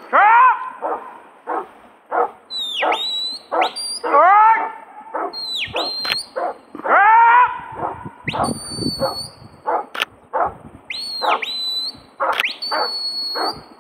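Huntaway dog barking over and over, short barks about every half second to second, broken by several louder, drawn-out calls. High shepherd's whistle commands sound a number of times, each note sweeping down in pitch.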